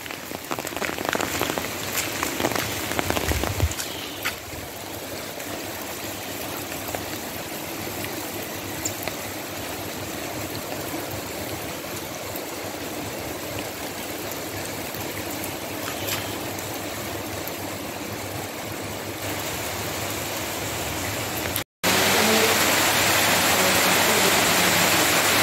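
Steady rain falling on trees and foliage, an even hiss, with a few light knocks in the first few seconds. About 22 seconds in the sound cuts out for a moment and comes back louder.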